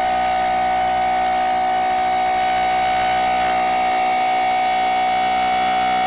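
Emergency alarm siren holding one steady high tone, with fainter steady lower tones underneath.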